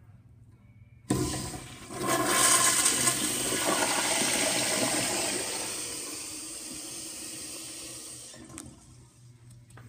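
Toilet flushing: a sudden rush of water starts about a second in, swells to its loudest a second later, then tapers off steadily and fades out near the end as the bowl empties and refills.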